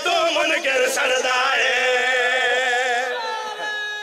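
A man's voice chanting a devotional verse in a wavering, ornamented melodic line, then settling into one long steady held note about three seconds in.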